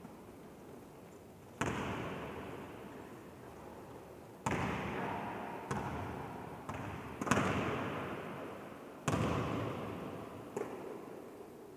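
A basketball striking the hoop and bouncing on the court floor, about seven sharp irregular thuds, each followed by a long echo in a large empty sports hall.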